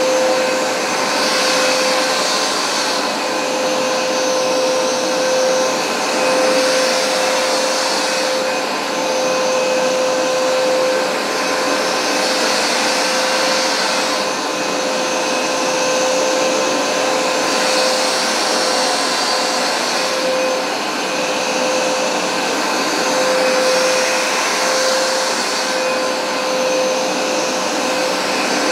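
Hoover SmartWash Pet carpet cleaner running steadily, its motor giving a constant whine under a loud rushing hiss. The higher hiss swells and fades every few seconds.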